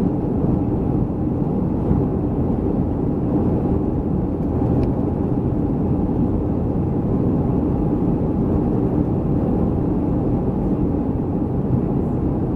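Steady engine and airflow noise of a Boeing 737-300 jetliner in flight, heard inside the passenger cabin: an even, low rumble with no changes.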